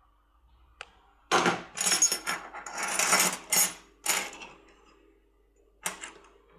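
Small metal objects handled on a hard surface: a click, then a few seconds of clinking and clattering, then another click near the end.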